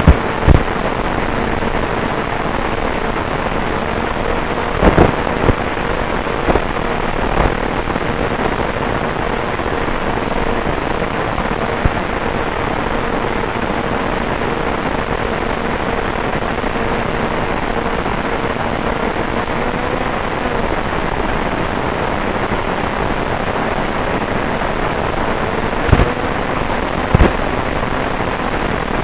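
Steady hiss of wind and radio static on the analog FPV video link's audio, under a faint steady whine from the electric motor and prop. The whine fades out about two-thirds of the way through and comes back slightly rising near the end. A few sharp crackles of signal breakup come in several seconds in and again near the end.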